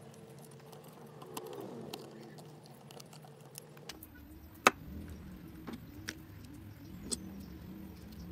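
Light metallic clicks and clinks of a screwdriver and small lens-mount parts being handled on a DSLR camera body, over a low steady hum. One sharp click about halfway through is the loudest.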